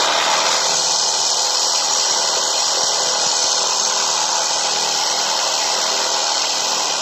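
iBELL IBL JS10-70 700 W jigsaw running steadily as its blade is worked along the edge of a cut heart shape to smooth it. It starts to wind down near the end.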